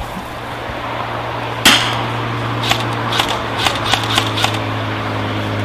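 Airsoft guns firing single shots: one sharp, close crack about a second and a half in, then several fainter single shots spread over the next few seconds, over a steady low hum.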